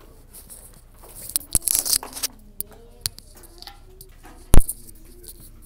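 Handling noise on a phone's microphone: rustling and rubbing against the phone, with a few sharp knocks, the loudest about four and a half seconds in.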